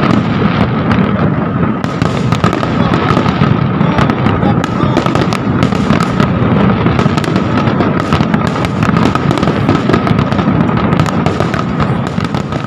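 Fireworks going off in rapid succession: a dense, continuous crackle of pops and bangs, with a steady high whine underneath.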